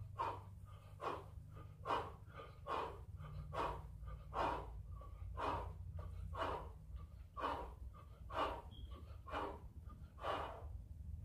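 A man breathing hard and rhythmically while doing jumping jacks, about one breath a second, over a steady low hum.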